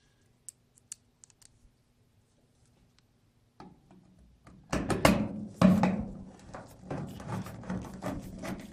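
A few faint clicks, then from about halfway a busy run of knocks, clicks and scrapes as the dryer's cord cover and the appliance are handled.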